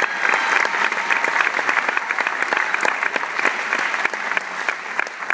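Audience applauding, a dense steady clapping with sharp individual claps close by, easing slightly near the end.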